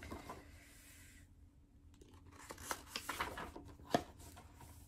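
Pages of a picture book being turned and the book handled: faint paper rustling, busiest in the second half, with one sharp tap about four seconds in.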